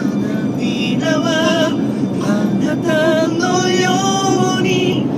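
Male voice singing a pop ballad along with music in the car, a melody part and a harmony part layered together, with long held, wavering notes.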